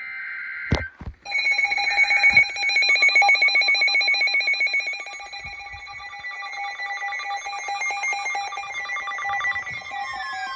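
Weather alert radios going off for a new warning: a short burst of SAME data tones, two clicks, then an electronic alert alarm of several steady high tones pulsing rapidly, with a falling tone coming in near the end.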